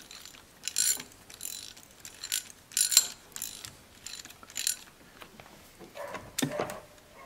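Ratchet clicking in short, irregular bursts as it turns the injector hold-down bolt on the OM642 diesel, a bolt that stays tight in its threads.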